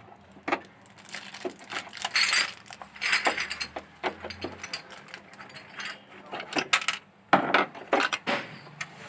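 A screwdriver undoing the screws that hold a CRT TV's speaker: irregular clicks and short ratcheting rasps, in clusters about two to three seconds in and again near the end.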